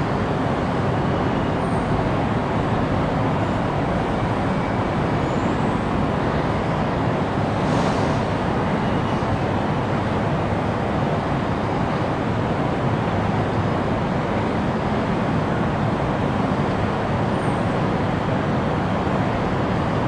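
Steady, even background noise of an underground MRT station platform, with a train standing at the platform behind the screen doors; it holds at one level throughout.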